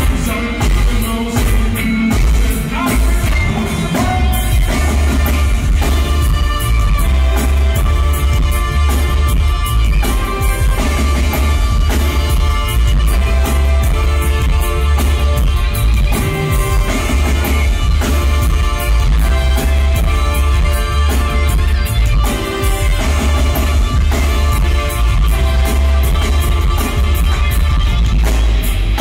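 Live reggae band playing with singing: heavy bass, drums, guitars and horns. The music is loud and steady, overloading the phone's microphone.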